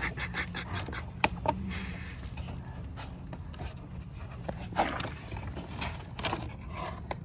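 Scattered light knocks and scrapes of a car body part being handled and worked into place, over a steady low hum.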